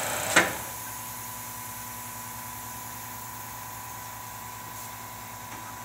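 A sharp click from a switch on the CNC mill's control panel about half a second in, after which the machine's running noise drops to a quieter steady hum with a thin steady whine.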